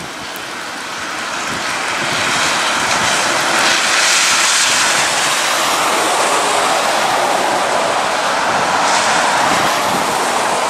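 Traffic on a rain-soaked highway: a steady hiss and roar of tyres on wet road and spray, swelling over the first couple of seconds as vehicles come past, with wind and rain at the microphone.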